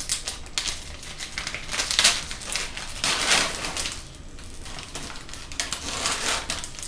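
Wrapping of a sterile surgical instrument peel pack crinkling and rustling as it is handled and unwrapped, in irregular crackly bursts, the loudest about two and three seconds in.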